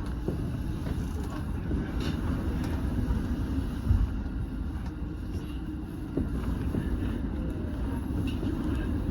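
Running noise heard aboard a Keiyo Line electric commuter train: a steady low rumble of wheels on rail with a few light clicks and a thump about four seconds in, the train running at reduced speed under a strong-wind restriction.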